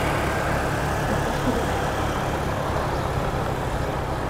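Steady rumble of city street traffic, with engines running and no single vehicle standing out.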